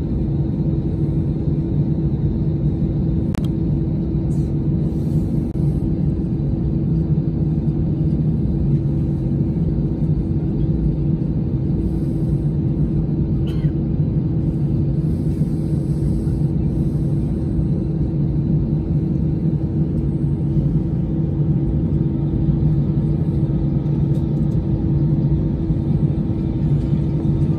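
Steady low rumbling drone with a constant hum, heard inside a parked airliner's cabin during de-icing.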